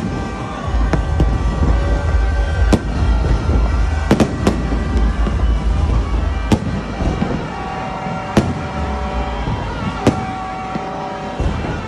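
Aerial fireworks bursting overhead: a string of sharp bangs at uneven intervals, with a quick cluster of three about four seconds in, over a low rumble that eases off about halfway.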